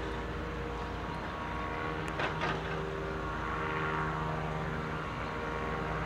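A steady engine drone made of several steady tones, whose pitch shifts a little about two seconds in, with a brief rasping noise at that point.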